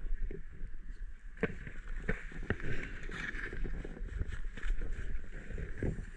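Wind rumbling on a body-worn camera's microphone, with jacket and gear rustling and a few sharp clicks as gloved hands handle equipment.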